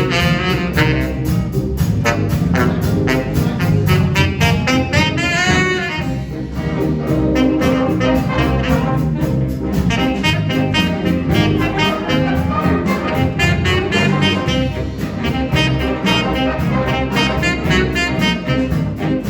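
Junior high school jazz band playing, with saxophones and brass over a rhythm section that keeps a steady beat. About five seconds in there is a rising run of notes.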